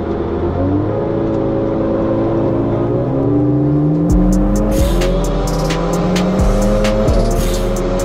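A car engine accelerating, its pitch climbing and then dropping back once as at a gear change, over music; a heavy bass beat with sharp hits comes in about halfway.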